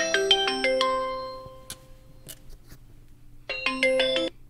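WeChat voice-call ringing tone, heard while the call waits to be answered: a short melody of bell-like notes. It starts again about three and a half seconds later.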